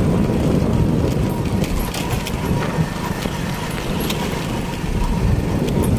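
Ride in a moving vehicle on a rough road: a steady low rumble with scattered knocks and rattles.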